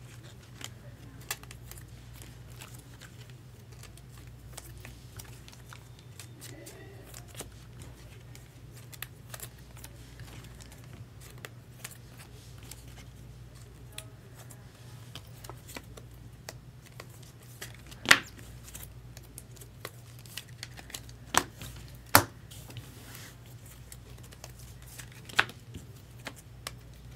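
Trading cards being handled on a table: light scattered clicks and rustles, with a few sharper clicks and taps, the loudest about 18 and 22 seconds in, over a steady low hum.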